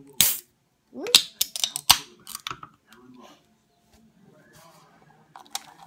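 Ring-pull aluminium can of carbonated soda being opened: a sharp crack and brief hiss as the tab breaks the seal, followed about a second later by a quick cluster of clicks and taps, with one more click near the end.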